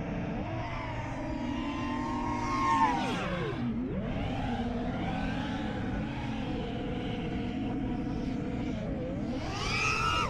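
The brushless motors (Ethix Stout 2306 1750 kV) of a 5-inch FPV freestyle quadcopter whining, their pitch rising and falling with the throttle. The pitch drops steeply around three to four seconds in and climbs again, then rises sharply near the end as the throttle is punched.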